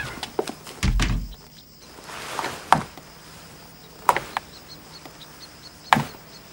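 A heavy dull thump about a second in, then a short rising hiss ending in a sharp click, and a few more sharp knocks spaced over a second apart.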